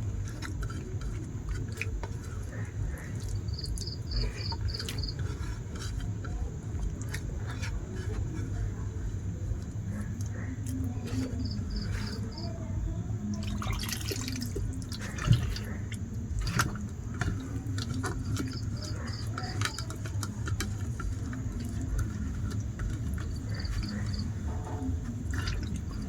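Eating sounds from a rice-and-dal meal eaten by hand: wet mixing and squishing, small clicks and chewing, with a louder scrape or clatter about a quarter of the way into the second half. Behind it a cricket chirps in short trills of about five pulses every few seconds, over a steady low hum.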